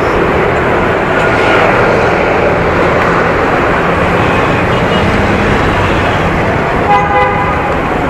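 Steady city road traffic noise, with a vehicle horn sounding briefly near the end.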